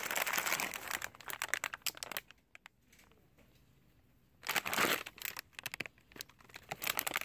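Plastic cookie package crinkling as it is handled. It comes in spells of crackling, with a lull of about two seconds near the middle.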